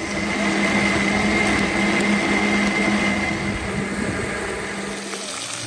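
Electric blender running steadily, a low hum with a high whine over it, stopping about five seconds in.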